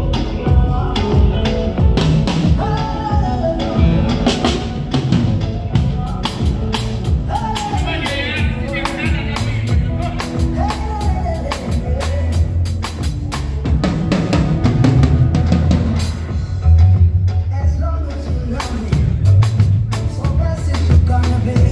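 Live band music with an acoustic drum kit played hard, dense hits on drums and cymbals, and a voice singing a melody over it. A deep, heavy bass comes in strongly about two-thirds of the way through.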